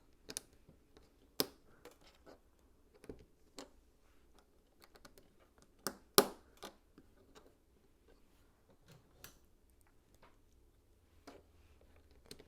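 LEGO plastic bricks being handled and snapped together: irregular sharp clicks and taps, the loudest about six seconds in.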